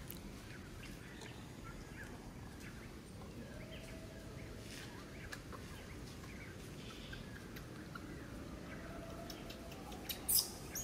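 Outdoor ambience: a steady low background noise with scattered faint bird chirps and light clicks, then a sharp burst of noise about ten seconds in.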